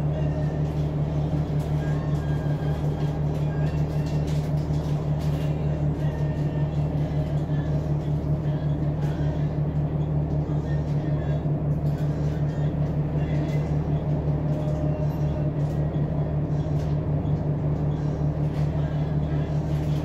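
John Deere 8.1G CNG engine of a Blue Bird Xcel 102 transit bus idling, heard from inside the cabin as a steady low hum with an unchanging pitch.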